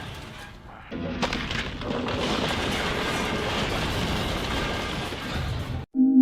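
Cartoon action sound effects: a dense rumbling crash starts suddenly about a second in, with a sharp clang just after it, likely the show's reused 'metal pipe falling' effect. The noise cuts off abruptly near the end, where synthesizer music begins.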